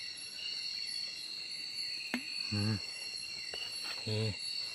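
Night chorus of insects, such as crickets, trilling steadily at several high pitches. There is a single click about two seconds in, and two short low voice sounds.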